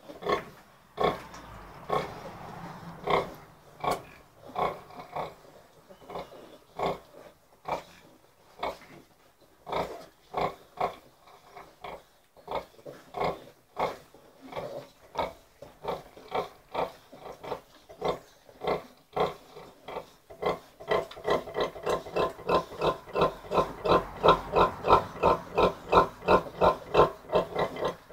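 Nursing sow grunting rhythmically while her piglets suckle. The grunts are spaced about a second apart at first, then about two-thirds of the way in they become a fast, regular, louder series, the quickening that comes with milk let-down.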